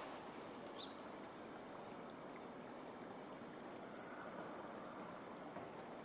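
Common kingfisher calling: one sharp, piercing high note about four seconds in, then a second shorter note right after it. A fainter high chirp comes earlier, under a steady background hiss.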